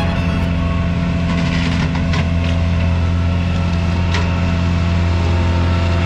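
Self-propelled forage harvester and tractor running steadily under load while the harvester chops standing barley and blows it into the wagon: a deep, even engine hum, with a few faint clicks.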